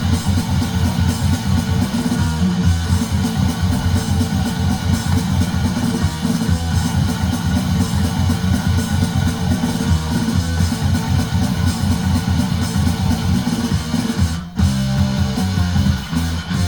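Background music with guitar, starting abruptly and dropping out for a moment about fourteen seconds in.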